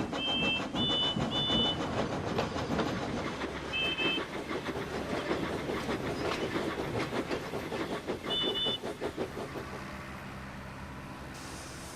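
Steam locomotive sound effect: an engine puffing and rattling along, its two-tone whistle giving a quick run of short toots at the start, then one more toot about four seconds in and another about eight seconds in. The chuffing fades away near the end, leaving a steady low hum.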